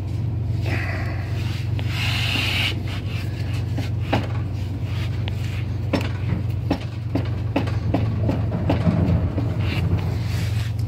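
Rear wheel of a 2002 Suzuki Katana 600 being turned by hand in sixth gear to rotate the engine over and line up the cam timing marks for a valve adjustment: tire and chain handling noise with scattered clicks and knocks, a longer rustling scrape about two seconds in, over a steady low hum.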